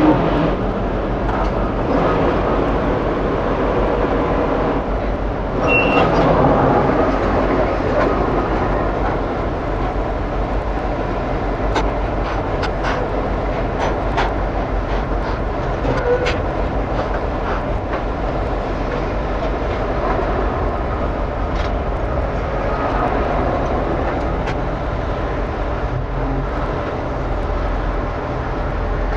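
Heavy diesel truck running, a steady engine and road drone with scattered light rattles and clicks, and a brief high squeak about six seconds in.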